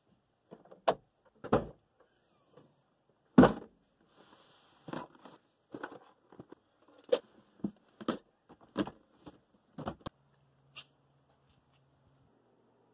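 Irregular thumps, knocks and clatter of gear being set down and shifted in an SUV's cargo area: plastic storage bins and bike parts bumping the floor and sides, the loudest knock about three and a half seconds in. The knocking stops about eleven seconds in.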